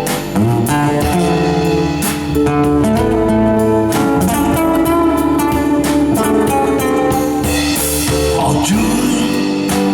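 Blues music in an instrumental passage with no singing, an electric guitar leading over the band.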